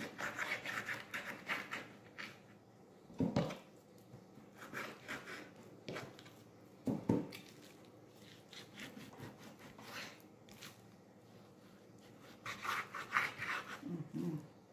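Kitchen knife sawing and scraping through raw bone-in beef on a wooden cutting board, in quick back-and-forth strokes at the start and again near the end. Two short dull knocks on the board come about three and seven seconds in.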